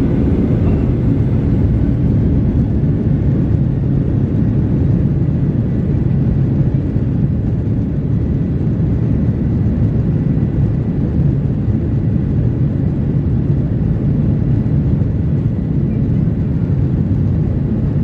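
Jet engine and airframe noise of a Boeing 737-800, heard from inside the passenger cabin: its CFM56 turbofans give a steady low rumble that does not rise or fall noticeably.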